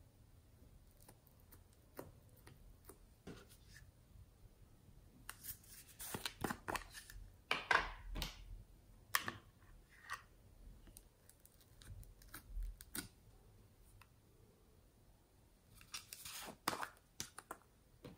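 Faint scattered clicks, taps and crackly scraping from hands handling small plastic containers and a spatula over trays of slime. The noises bunch up in two spells, the louder a little before halfway and another near the end.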